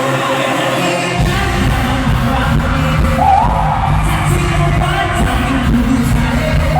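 Amplified live pop music with singing at a concert, recorded from the audience; a heavy bass beat comes in about a second in.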